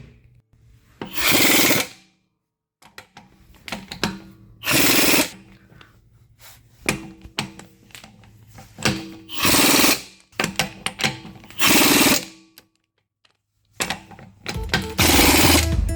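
A power tool is run in five short bursts of about a second each, with small clicks and knocks of tools and parts between them.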